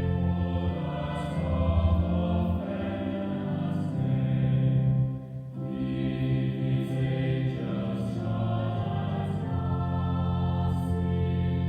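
Choir singing slow, sustained chords, with a short break between phrases about five seconds in.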